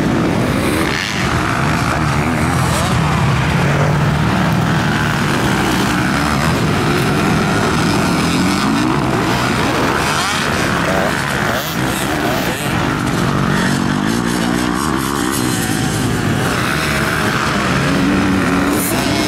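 Several MX2 motocross bikes racing on a dirt track, their engines revving up and down in overlapping rising and falling whines as they accelerate and jump.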